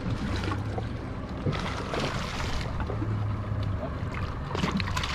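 Wind and water noise aboard a fishing boat at sea, over a low steady hum.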